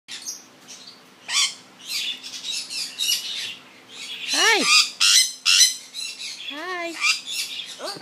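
Yellow-headed amazon parrot squawking and chirping in short, high calls, with a few louder rising-and-falling calls about halfway through and again near the end.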